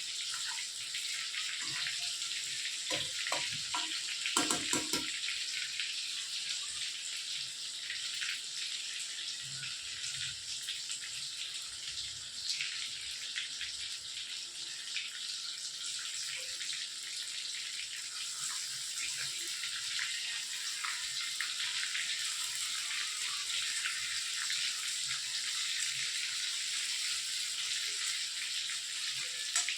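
Marinated chicken 65 pieces deep-frying in hot oil: a steady sizzling crackle. A few short knocks about three to five seconds in.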